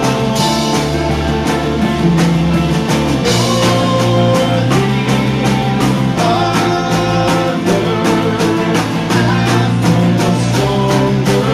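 A rock band playing live: electric guitar and bass over a steady drum beat, with some singing.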